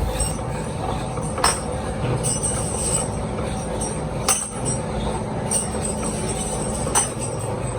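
Polishing machine running steadily for the final polish of brass lock parts, with a few sharp metallic clicks.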